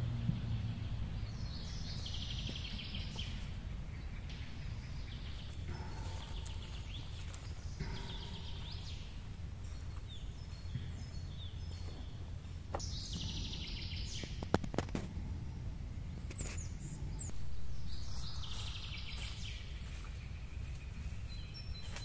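Forest ambience: songbirds singing short, rapid phrases every few seconds over a steady low rumble. A few sharp knocks sound in the middle.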